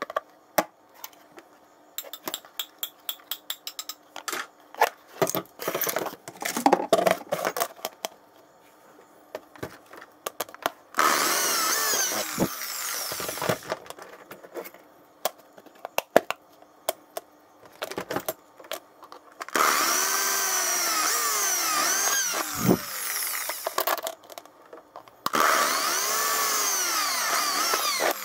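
Handheld power drill boring holes through a thin plastic plate, running in three bursts after several seconds of clicks and knocks from parts being handled. The drill's whine bends up and down in pitch as it runs.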